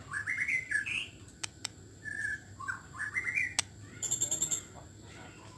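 White-rumped shama singing short whistled phrases that rise and fall. The phrases are broken by a few sharp clicks, and a fast burst of high ticking chatter comes near the end.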